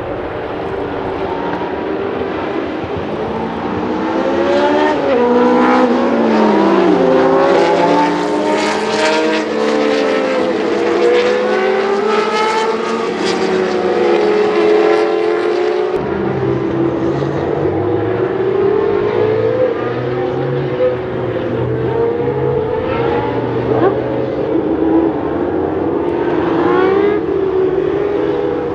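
Several historic 1970s–80s Formula 1 racing car engines running at high revs, their pitch rising and falling as the cars accelerate, shift gear and pass, with more than one car heard at once. The sound changes abruptly about halfway through.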